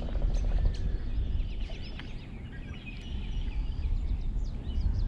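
Several birds calling outdoors: scattered short chirps and whistles, with a quick rapid trill about two seconds in, over a steady low rumble.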